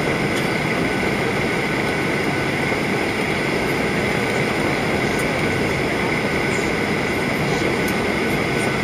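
Steady in-flight cabin noise of a Ryanair Boeing 737-800, heard from a window seat beside the wing: the CFM56 turbofan engines and airflow make an even rumble, with a steady high-pitched whine on top.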